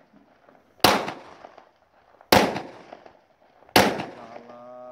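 Pistol fired into the air three times, about a second and a half apart, each shot a sharp crack with a short echoing tail.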